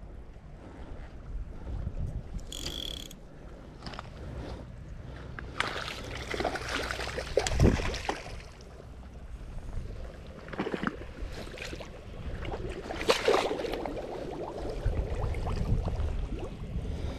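A hooked trout splashing and thrashing at the surface of shallow water in irregular bursts while it is played and netted, the loudest splash about eight seconds in. Wind rumbles on the microphone underneath.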